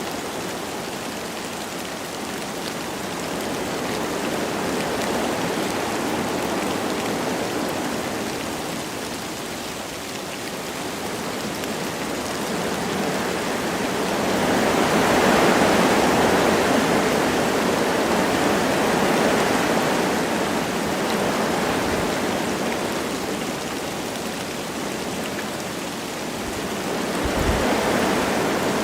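Wind blowing through forest trees with light rain falling, rising and falling in slow gusts, the strongest about halfway through and another near the end.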